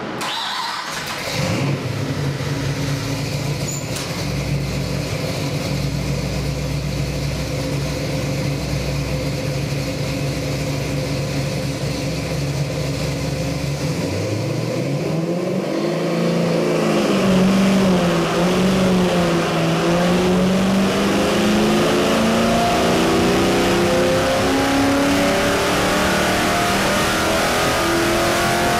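Ford 351 Windsor small-block V8 crate engine with aluminum heads running on an engine dyno. It idles steadily for about the first half, then goes to full throttle under the dyno's load and rises in pitch, sagging briefly before climbing steadily from about 1,000 to 5,000 rpm.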